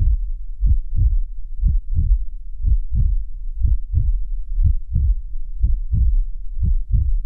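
Heartbeat sound effect: deep double thumps, two beats close together, repeating about once a second.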